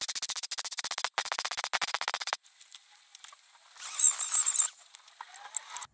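MIG welder crackling in rapid, even pulses while a patch is welded into a car's steel door pillar, with a short break about a second in; the welding stops about two and a half seconds in. About four seconds in, a Parkside power tool with an abrasive wheel runs briefly against the fresh weld.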